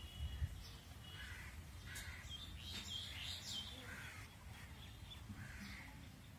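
Outdoor birds calling: a string of crow-like caws with some higher calls clustered in the middle, over a low steady background rumble. A single low thump about half a second in.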